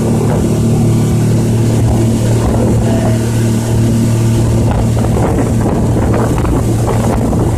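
Motorboat engine running steadily at cruising speed, a low, even hum, with the rush of water and wind around the boat.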